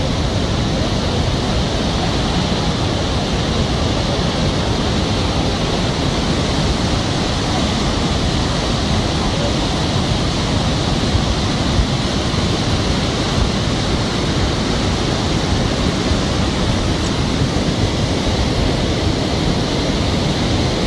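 Loud, steady rush of a river in flood: fast, muddy floodwater churning over rocks.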